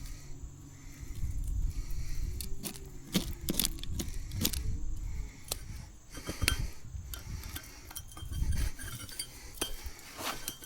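Scattered light clinks and knocks of small hard objects, a dozen or so irregular ticks, over a low uneven rumble of handling or movement.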